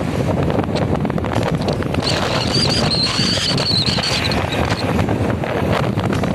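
Wind and road rumble from a moving vehicle, broken by rapid irregular knocks. A thin high whistle comes in about two seconds in and stops about halfway through.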